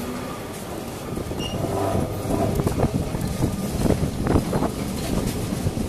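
Lisbon street tram running along the track, heard from on board: a steady low rumble of wheels and motor with a clatter of knocks and rattles from the wheels on the rails, growing louder about two seconds in.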